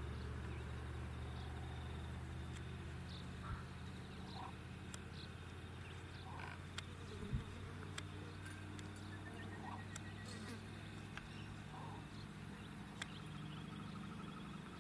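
Quiet rural outdoor ambience: a low steady hum underneath, with scattered short chirps and a brief rapid ticking trill about nine to ten seconds in. The crossing's bell is not ringing.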